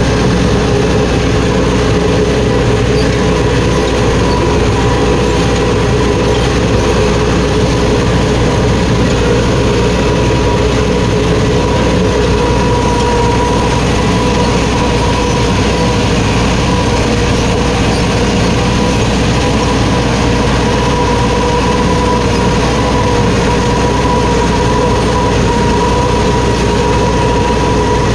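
Massey Ferguson 4x4 tractor's diesel engine running steadily under load, with a steady whine over its low rumble.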